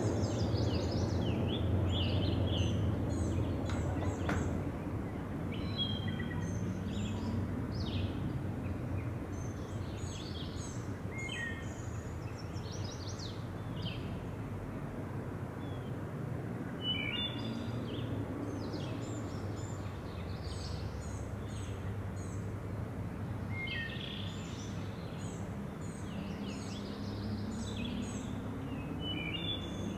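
Woodland songbirds chirping and singing on and off over a steady low outdoor rumble, which is loudest at the start and eases off. Faint slow rising tones come and go underneath.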